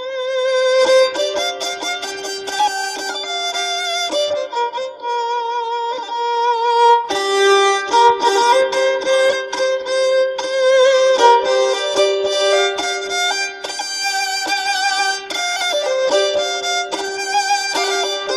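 Instrumental background music: a melody with vibrato over a steady held low note.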